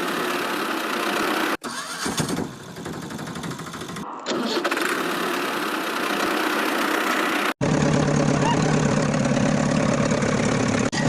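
Engine sound like a tractor's, starting and running at a steady idle. It comes in several pieces joined by abrupt cuts.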